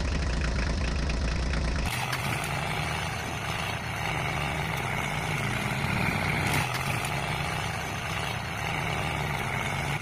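Steady engine-like running sound of a mini tractor. It starts as a deep hum and changes about two seconds in to a higher, busier drone that holds steady.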